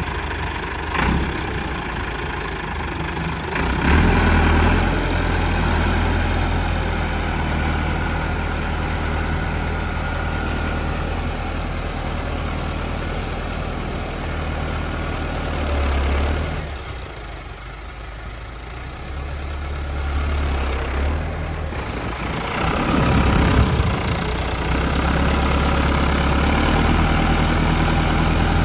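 Massey Ferguson 385 tractor's four-cylinder diesel engine running while pulling a tined cultivator through the soil. The engine grows louder about four seconds in, drops away for a few seconds past the middle, and builds again near the end.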